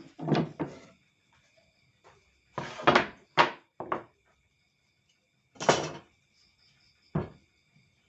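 Several separate clunks and knocks at irregular intervals, over a faint, steady, high-pitched whine.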